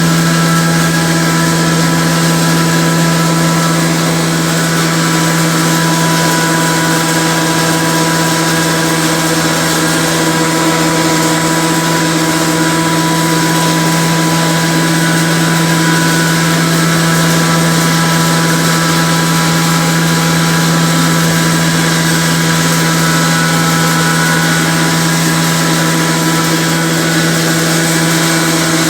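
Kiran electric wet grinder for idli and dosa batter running steadily, its motor giving a constant hum with no change in speed.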